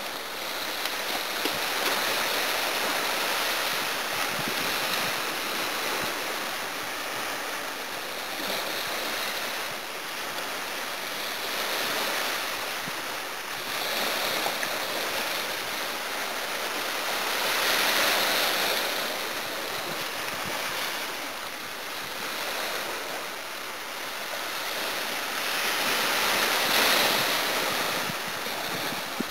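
Small waves breaking and washing up a sandy beach, the surf noise rising and falling every few seconds.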